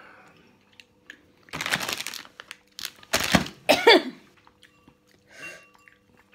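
A woman coughing and breathing out hard: three bursts between about one and a half and four seconds in, the last with a bit of voice in it. It is a reaction to the heat of very spicy hot chicken ramen burning her mouth.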